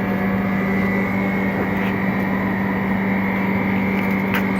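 Screen-separating freezer machine running with a steady mechanical hum on one low, unchanging tone. A short click near the end.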